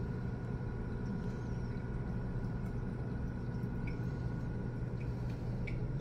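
DigiBoil electric still running: a steady low hum with the sour mash bubbling inside the glass column, and a few faint ticks near the end.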